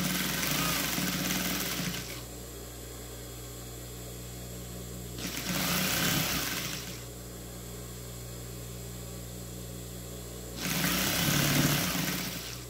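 Industrial sewing machine stitching fabric in three short runs of about two seconds each, stopping in between, with a steady low hum while it rests.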